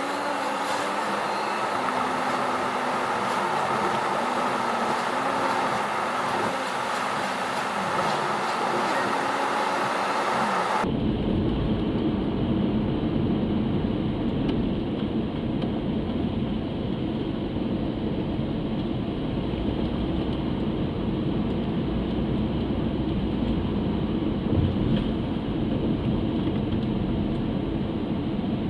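Steady vehicle and train running noise at a railway level crossing. About eleven seconds in, the sound changes abruptly from a brighter sound with a wavering hum to a deep, muffled rumble.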